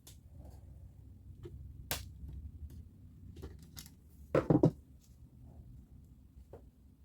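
Tools and small parts being handled during hand disassembly of a power tool on a workbench: scattered light clicks, a sharp click about two seconds in, and a short clatter of several louder knocks about four and a half seconds in.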